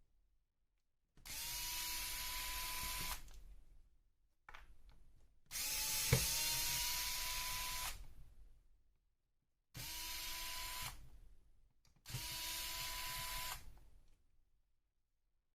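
Small cordless power screwdriver running in four short bursts of one to two and a half seconds each, a steady motor whine, while unscrewing the screws of an RC car. A sharp knock lands in the second and longest burst.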